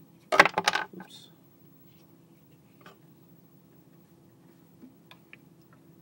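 Brief metallic clatter of a Zippo lighter fumbled and dropped onto the table: a quick run of sharp clicks lasting under a second, then a few faint small clicks.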